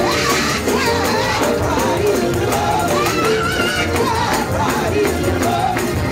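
Up-tempo Pentecostal gospel music: tambourine and band playing a driving beat while voices sing and call out over it.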